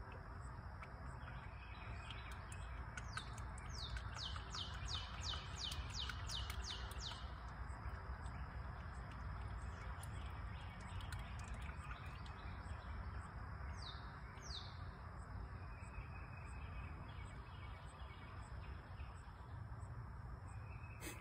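A songbird gives a quick run of descending chirps, about three a second, then two more chirps and the start of another run near the end, over steady low outdoor background noise.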